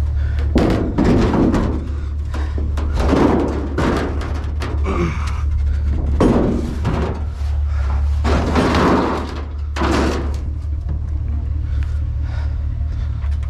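Scrap metal and debris banging and scraping against the inside of a metal dumpster in about seven irregular clattering bursts as pieces are dug out and pulled loose, over a steady low hum.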